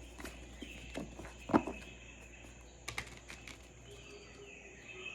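A jungle-ambience recording with a steady high insect drone and faint bird calls, over a few sharp clicks and taps, the loudest about a second and a half in.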